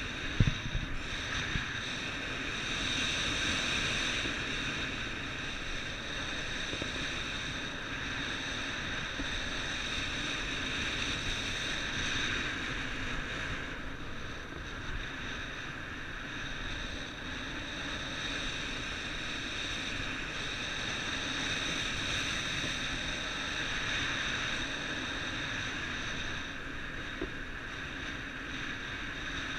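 Wind blowing steadily, with low rumble on the microphone and a constant high-pitched drone layered over it. A few brief knocks come about half a second in.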